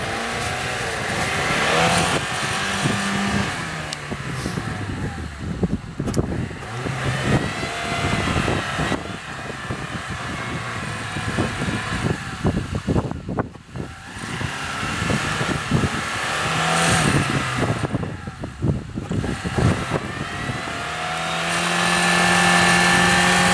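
Chevrolet Niva's engine revving hard as the car ploughs through deep snow, the engine note repeatedly rising and falling as the wheels dig in, with many short crackles throughout. Near the end the revs climb and are held high.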